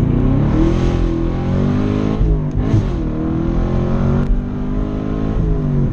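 2020 Camaro SS's 6.2-litre V8 with long-tube headers pulling under acceleration: its pitch rises, drops briefly about two and a half seconds in, climbs again and falls away near the end.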